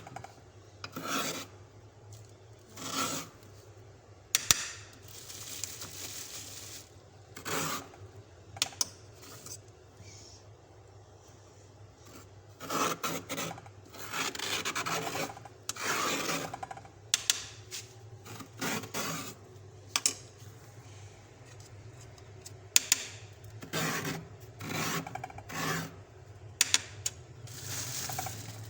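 Frost being scraped off the inside of a fridge in irregular rasping strokes, some short and some drawn out over a couple of seconds, with a few sharp clicks in between.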